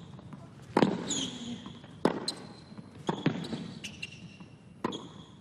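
Tennis ball struck back and forth in a baseline rally on a hard court: sharp racket hits about every second and a half, with high sneaker squeaks on the court surface between them.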